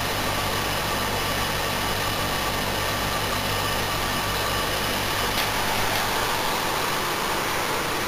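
Panasonic 6.4 kW split-system air conditioner running steadily in cooling mode just after start-up: an even hum with the rush of its fans.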